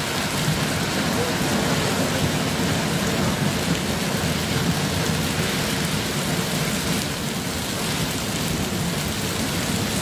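Muddy flash-flood water rushing steadily down a gravel channel, a continuous heavy torrent carrying mud and stones.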